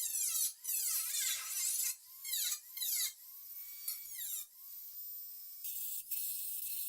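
A small high-speed power tool whining in short bursts, its pitch gliding up and down as it speeds up and slows down. From about two thirds of the way in, a steady hiss takes over.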